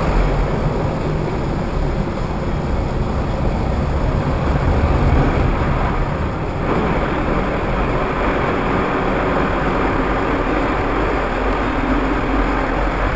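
Automatic car wash machinery running, heard from inside the car: a steady rush of water spray and equipment working over the car body, growing brighter about seven seconds in as water and foam sheet over the windshield.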